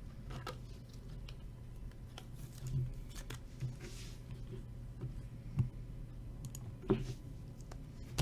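Trading cards being handled: scattered light clicks and taps, with a soft rustle about four seconds in, over a steady low hum.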